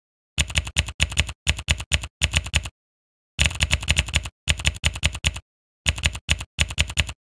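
Typing sound effect: rapid keystroke clicks in short runs with brief gaps between them, and a longer pause about three seconds in.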